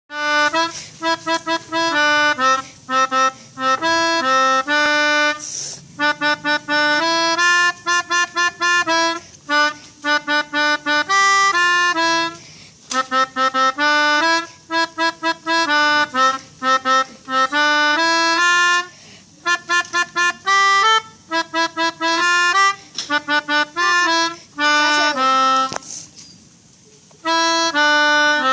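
Pianika (melodica) playing telolet bus-horn jingles: short phrases of quick, staccato notes in a reedy tone, with brief pauses between the phrases.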